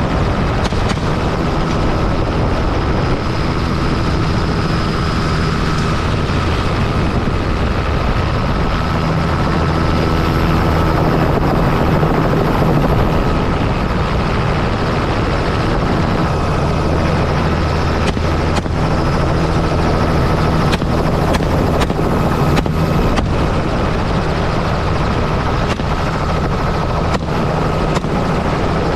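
Helicopter in flight, heard from its open-doored cabin: a loud, steady din of rotor and engine. In the second half there are a few short, sharp clicks.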